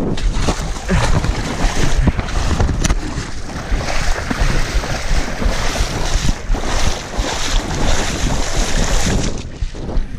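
Legs splashing and churning through knee-deep muddy water while running through a flooded pit, with wind buffeting the microphone. Near the end the splashing drops off as the runner steps out onto mud.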